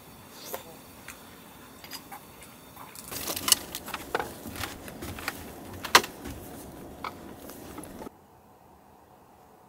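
Light clicks, taps and clattering of small hard objects being handled, getting busier about three seconds in with two sharper knocks, then cutting off abruptly near the end to quiet room tone.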